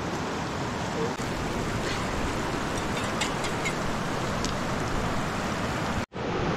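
Steady rushing of a big river's water, an even wash of noise, with a few faint light ticks about halfway through.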